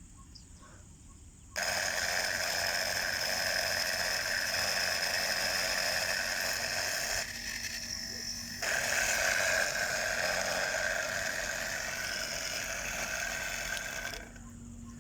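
A 12 V DC Baleno motor, taken out of its fan, running with a loud, steady whirring and rasping noise. It starts about a second and a half in, dips briefly in the middle and drops off near the end. The noise comes from its front and rear bearings: dirt is caught in them or they are jammed, and the bearing ring turns in its seat.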